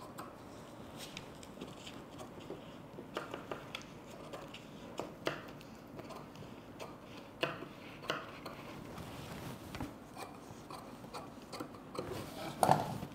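Scissors cutting through folded lining cloth pinned to a paper pattern: scattered, irregular snips and clicks, with a louder knock near the end.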